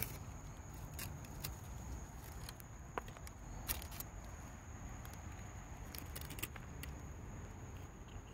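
Outdoor insect chorus, a steady high-pitched drone, with scattered light clicks and rustles from movement on pine-needle litter.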